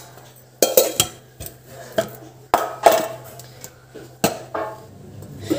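Steel containers and a small glass jar being handled and set down on a kitchen counter: irregular clinks and knocks, about one or two a second, each ringing briefly, over a low steady hum.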